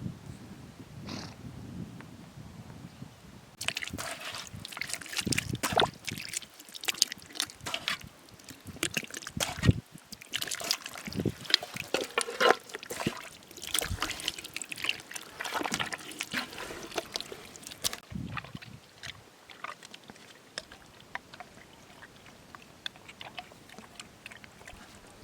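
Water splashing and sloshing in irregular bursts, which thin out to scattered faint drips and ticks near the end.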